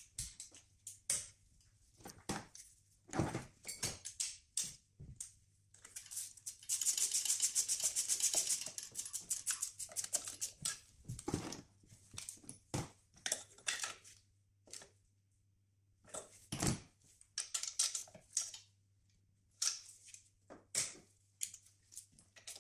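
Socket ratchet clicking in short bursts, with a long fast run of clicks about six seconds in lasting two to three seconds, among knocks and clatter of hand tools against engine parts.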